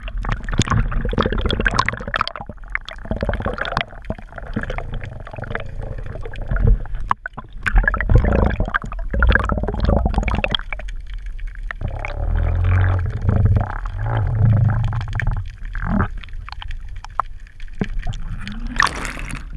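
Water gurgling and sloshing heard through a camera held under the surface, muffled, with irregular clicks and knocks against the housing and a louder rush near the end.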